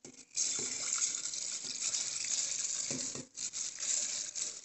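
Wet soaked rice and fenugreek seeds sliding from a steel bowl into a steel mixer-grinder jar, a steady gritty hiss of grains on metal that breaks off briefly a little after three seconds in and then resumes.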